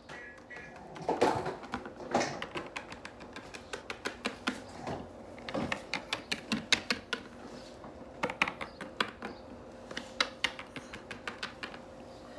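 Small plastic Littlest Pet Shop figures tapped and hopped along a stone countertop: a string of irregular light clicks and taps, coming in quick clusters.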